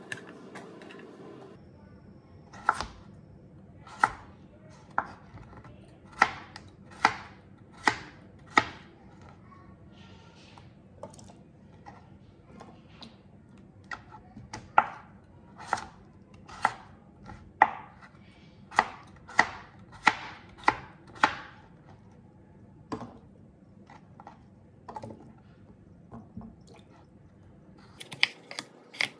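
Kitchen knife cutting raw carrot and peeled potato on a plastic cutting board: sharp knocks of the blade meeting the board, roughly one a second with pauses, quickening into rapid chopping near the end.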